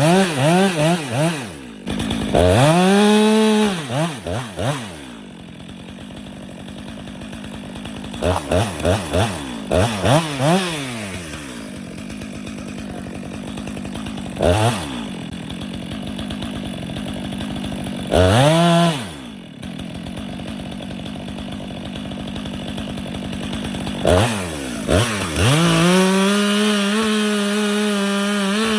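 Chainsaw idling, revved up and down in several bursts, then held at high revs for the last few seconds, as when cutting into a tree to fell it.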